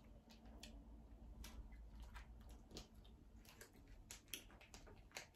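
Faint, scattered small clicks and crinkles of plastic sauce sachets being snipped open with scissors and squeezed out.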